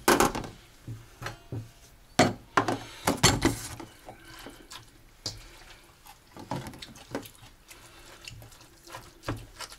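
Kitchen clatter of bowls and utensils being knocked and set down while salad is dished out, with a short rush of sink water about three seconds in.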